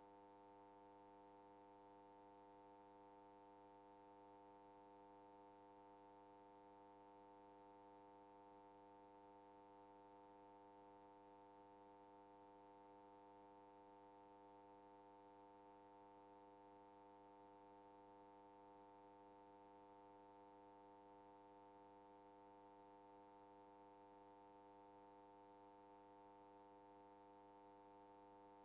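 Near silence, with only a faint steady hum of several fixed tones.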